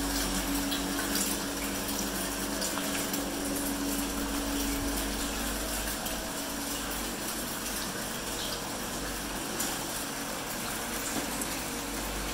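Water splashing and running into a shallow eel-rearing tank, a steady rush, with a low hum that fades out about halfway through.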